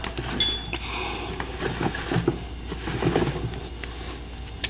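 Metal tools clinking and knocking on a dirt bike's rear sprocket bolts as the old bolts are loosened with a wrench. One sharp ringing metallic clink about half a second in, then quieter knocks and scrapes.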